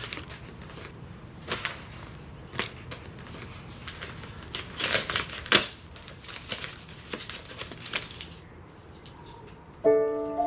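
Paper being handled: an envelope opened and its card drawn out, a run of crisp, uneven rustles and crackles. A soft piano chord comes in near the end.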